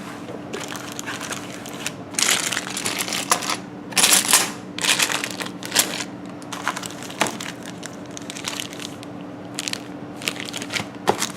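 Board game box contents and packaging crinkling and rustling in irregular bursts as components are handled and taken out, over a faint steady hum.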